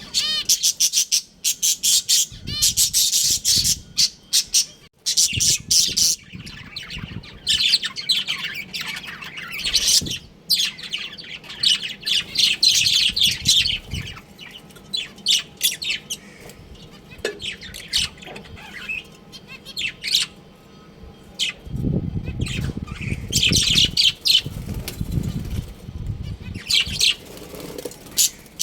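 A colony of budgerigars chirping and chattering, with many rapid high chirps and squawks overlapping. A low rumbling noise comes in for a few seconds about two-thirds of the way through.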